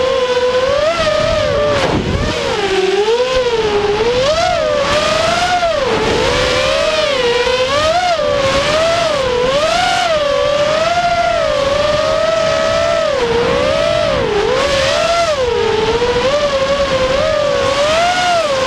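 Racing quadcopter's four Cobra 2206 2100KV brushless motors and propellers whining close up, the pitch constantly rising and falling as the throttle is worked through fast turns.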